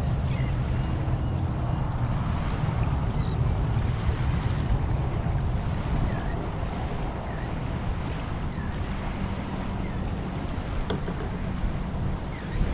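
Wind buffeting the microphone over small waves lapping on a sandy shore, with a few faint high chirps now and then.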